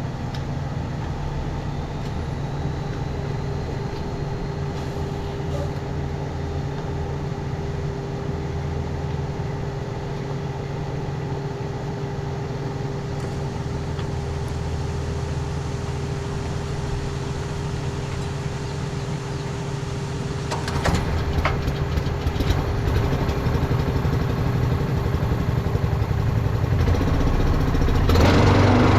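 Tractor engine running steadily. About three-quarters of the way through it grows louder, with a few knocks and rattles, and it rises again near the end.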